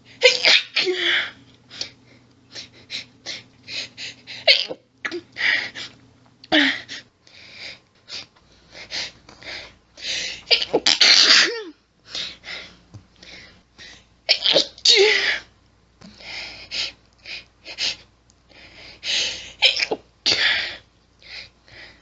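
A woman's rapid sneezing fit: a long run of short sneezes in quick succession with only brief gaps between them. A few longer, louder sneezes come about ten to eleven seconds in and again around fifteen seconds.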